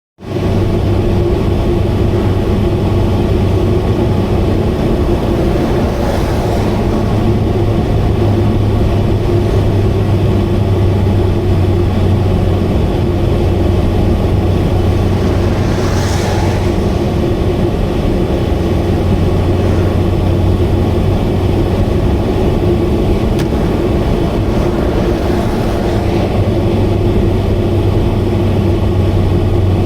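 Subaru Vivio KK3's four-cylinder engine and exhaust droning steadily at expressway speed, made loud by an exhaust leak; a deep hum sits under a steady higher drone.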